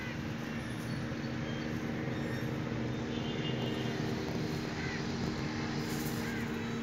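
A steady, unchanging motor or engine hum with several held low tones, and a few faint high chirps over it.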